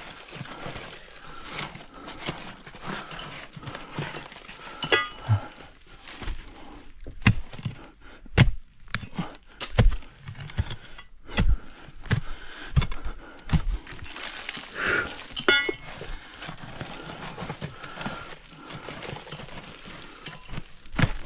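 Digging among stones and tree roots: irregular knocks and thuds with some cracking and crumbling as rock and earth are worked loose, the strongest strokes between about 7 and 14 seconds in.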